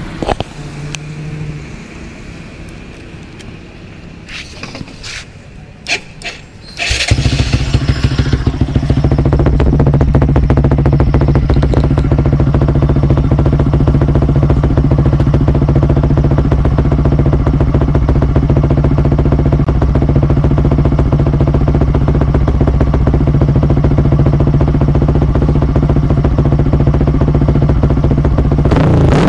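A modified Yamaha Exciter motorcycle's single-cylinder engine starts about seven seconds in, then idles steadily through a loud aftermarket exhaust.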